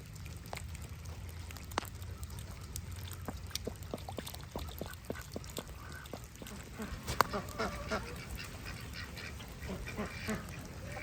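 Domestic ducks quacking and chattering in puddles, the calls picking up in the second half. There are many short clicks throughout over a steady low hum.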